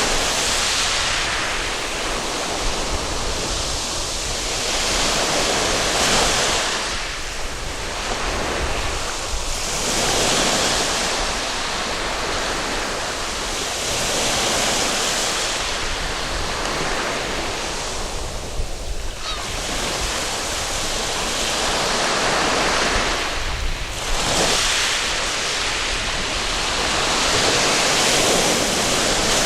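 Sea waves breaking on a sandy beach: a continuous wash of surf that swells and falls back every few seconds.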